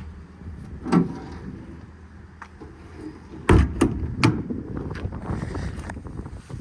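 Aluminum truck service-body compartment door handled and slammed shut: a sharp click about a second in, then a loud bang about three and a half seconds in followed by a few latch clicks.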